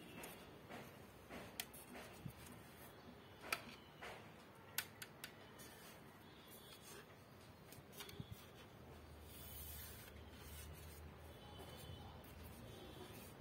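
Faint handling noise: a few scattered clicks and rubs as a plastic soundbar is turned over in the hands, followed by a faint low hum from about two-thirds of the way in.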